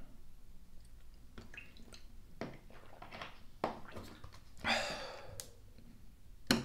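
Close-up mouth sounds of drinking water from a plastic bottle: scattered swallows and wet lip smacks, a breathy exhale about five seconds in, and a sharp click just before the end.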